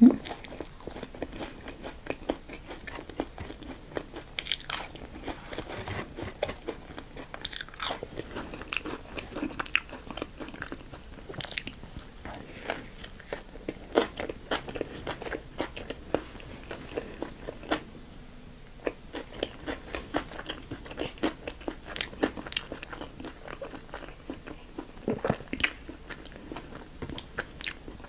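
Close-miked eating of crunchy fast food: continual chewing with crisp bites and crunches, several of them louder than the rest.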